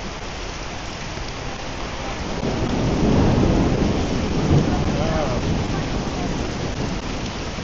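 Steady rain, with a roll of thunder that builds about two seconds in, rumbles for a few seconds and fades away.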